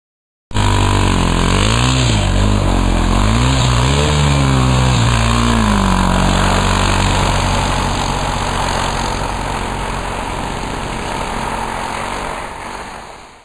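An engine revving up and down several times, then running at a steady speed until it cuts off near the end.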